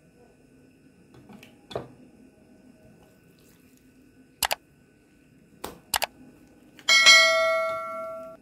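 Subscribe-button overlay sound effect: two pairs of quick mouse clicks, then a bright bell chime that rings for about a second and a half and fades. A soft knock comes a couple of seconds before the clicks.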